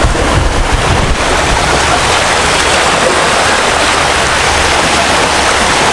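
Sea waves washing on the shore: a loud, steady hiss of surf.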